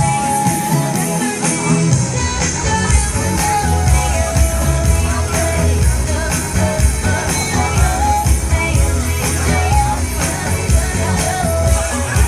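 Pop-rock music with singing over a steady bass and drum beat; the low bass comes in strongly about two seconds in.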